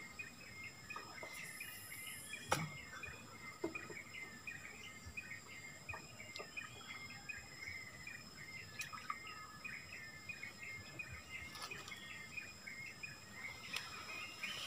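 Riverside forest ambience: a dense chorus of rapid, repeated chirping calls from insects and birds over a steady high-pitched insect drone. A sharp click about two and a half seconds in is the loudest sound, with a fainter one near the end.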